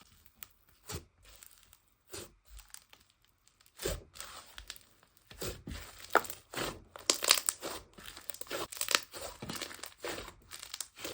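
Slime being squeezed and pressed by hand, giving crackling, crinkling pops; sparse at first, then busier and louder from about four seconds in.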